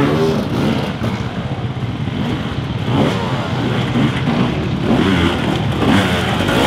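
Enduro dirt bike engine revving in short bursts, pitch rising and falling, as the bike is ridden over logs.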